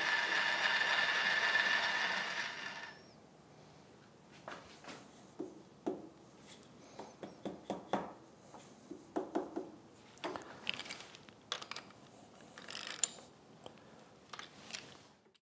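Socket ratchet clicking in a rapid buzz for about the first three seconds while the vise clamping bolts are snugged down, then scattered single ratchet clicks and light metal knocks.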